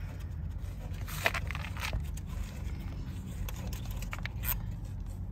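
Faint scrapes and a few light clicks as a gloved hand unscrews a cap inside a mini dumper's engine compartment, over a steady low rumble.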